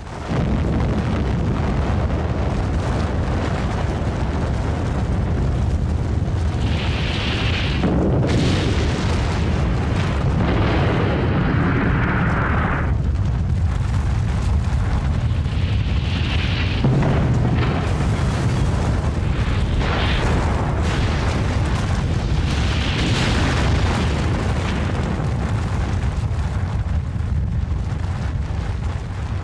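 Atomic bomb explosion sound effect. It starts with a sudden blast, then a long, loud, continuous low rumble with several surges, easing off near the end.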